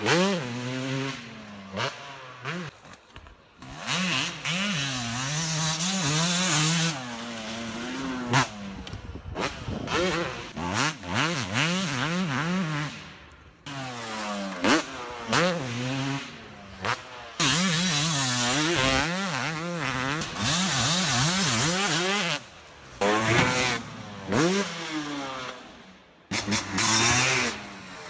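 Yamaha YZ250 two-stroke motocross bike engine being ridden hard, its pitch rising and falling over and over as the throttle is opened and snapped shut through the gears, with a few sudden breaks.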